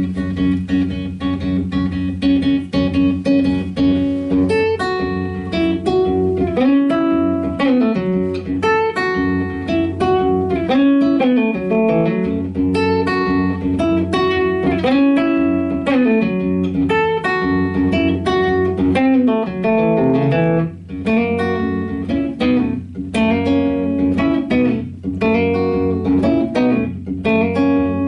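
Solo acoustic-electric guitar playing a blues: a run of picked single notes and chords, with several notes sliding in pitch.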